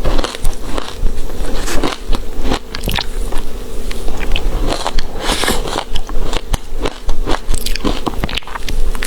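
Close-miked ice being bitten and chewed: a rapid, irregular run of sharp crunches and crackles, several a second.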